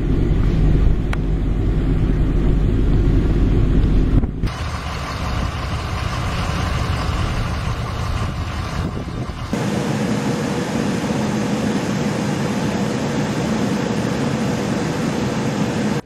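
Vehicles on snowy roads, heard in three cut-together stretches. About the first four seconds hold a heavy low rumble. Then comes a brighter, hissier stretch of traffic in snow, and from about nine and a half seconds a steady car engine and tyre sound.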